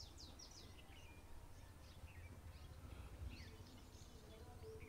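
Faint birdsong: a quick run of short, high, downward-sweeping chirps at the start, then scattered chirps, over a low steady rumble.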